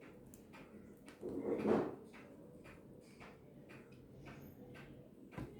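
Faint small clicks and handling noise as the crown is worked off a pocket watch movement, with one louder brief scraping rustle about a second and a half in.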